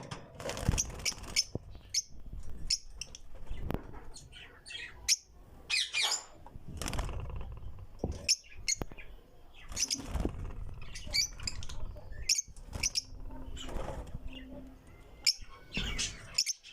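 Lovebirds chirping, with many short, high-pitched calls coming irregularly, mixed with sharp clicks and rustling from the birds moving about.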